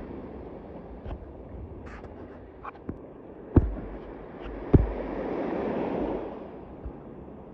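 Wind buffeting the microphone over the wash of sea waves, swelling and easing, with a few short sharp knocks, the loudest about halfway through.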